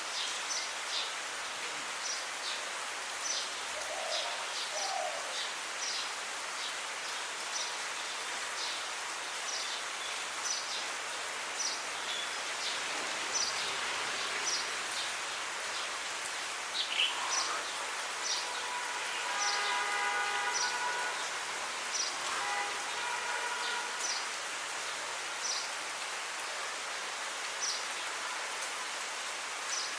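Steady monsoon rain falling, with a small bird giving short high chirps about once a second. From about 19 s, a held pitched sound with several tones comes twice.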